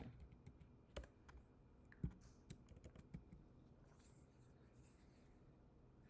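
Faint computer keyboard typing: a few scattered key clicks, the clearest about one and two seconds in.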